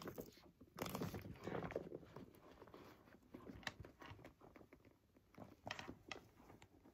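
Faint handling noise of small quilted leather handbags being set down and shifted, with soft rustles and a few light clicks from their metal chain straps.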